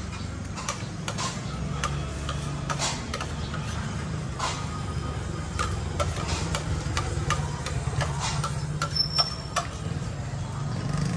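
Metal spoon clicking and scraping against a ceramic plate in many short, irregular clinks, over a steady low engine rumble.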